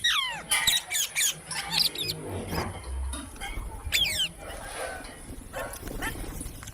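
Parrots calling: harsh screeches that slide sharply downward in pitch, one right at the start and another about four seconds in, with shorter chirps between.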